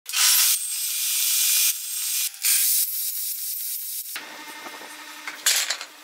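Table saw cutting a notch into a pine strip: a loud hissing noise of the blade through the wood in several short passes that stop sharply. From about four seconds in it is quieter, with a faint steady hum and a sharp knock near the end.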